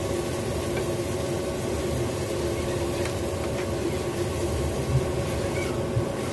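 A steady mechanical hum with a hiss under it, with two light knocks about five and six seconds in as a silicone spatula stirs tomato sauce in a stainless steel pan.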